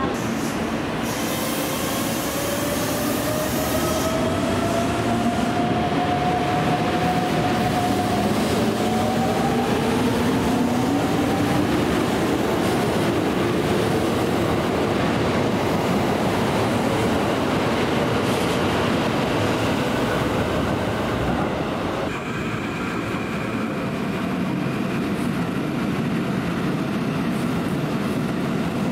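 Keikyu electric trains at station platforms: one pulls away with its traction motors whining slowly upward in pitch over about ten seconds, over a steady rumble of wheels on rail, with a hiss in the first few seconds. The sound changes about three-quarters of the way in, to train noise with a steady high tone.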